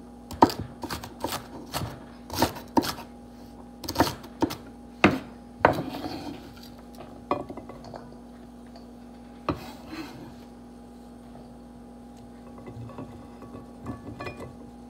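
Chef's knife chopping celery on a wooden cutting board: sharp, irregular knocks about two a second for the first six seconds, then only a few scattered knocks and light ticks. A faint steady hum runs underneath.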